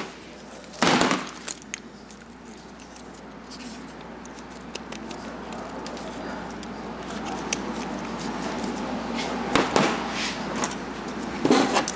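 Metal parts of a Rolls-Royce power steering rack being worked apart by hand: a sharp clack about a second in, then a low rough scraping that grows louder, with a few more clinks near the end as the lower seal plate and pinion come off.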